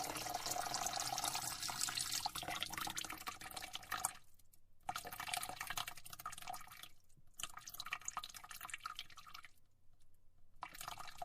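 Hands being washed under a running tap, with water splashing. The splashing is steady for about four seconds, then comes in stretches broken by short pauses, including a longer pause near the end.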